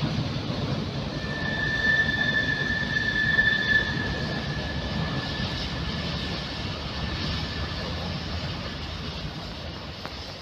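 A large vehicle passing with a steady rumble and a high, steady whine that comes in about a second in, is loudest a few seconds in and then fades away.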